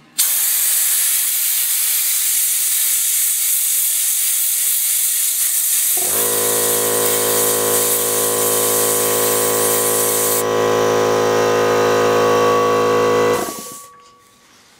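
Compressed air blasting baking soda through a homemade soda blaster, a pneumatic spray nozzle fed from a jar by rubber tubing, against a painted beer can: a loud steady hiss that starts suddenly. About six seconds in a steady low hum joins the hiss, and the hiss thins a little before both stop near the end.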